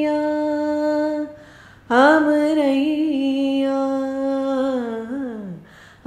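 A woman singing unaccompanied, holding long drawn-out notes. One note ends about a second in. After a short breath a second long note follows with small ornamental turns, and it slides downward near the end.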